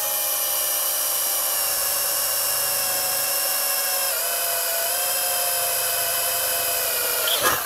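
Handheld electric drill running steadily as it bores a small pilot hole through a powder-coated metal chassis panel, its motor whine dipping slightly in pitch about four seconds in as the bit cuts. A brief rougher, grinding noise comes near the end.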